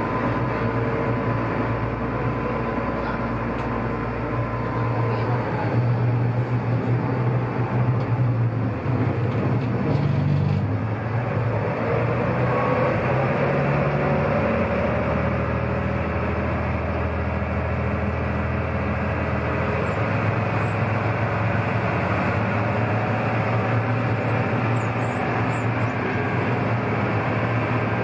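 Sightseeing boat's engine droning steadily while underway, mixed with the rush of water and spray along the hull; the engine's low hum shifts pitch a few times.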